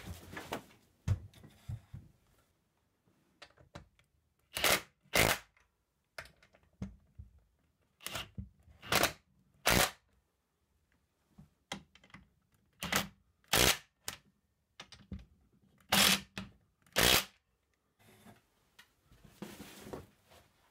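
Cordless impact driver run in short bursts of under a second, about nine in all, coming in pairs and threes, as it drives bolts into the chair's seat frame. Softer knocks and rustling from handling the chair come near the start and near the end.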